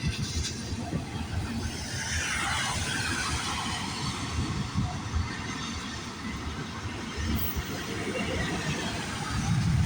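Wet-road traffic noise in heavy rain: a vehicle's tyres hiss past about two to three seconds in, over steady rain and an uneven low rumble on the microphone.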